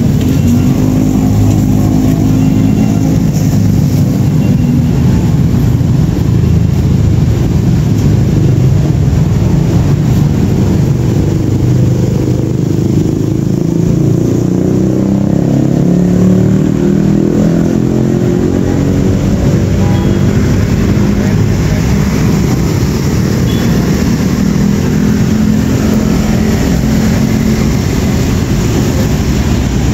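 Street traffic: motorcycle and car engines running, a steady low drone whose pitch rises and falls.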